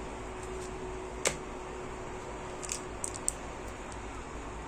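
Handling of a router's packaging: a sharp click about a second in, then a few light ticks and crinkles around three seconds in as a small plastic bag of screws is picked up, over steady background noise.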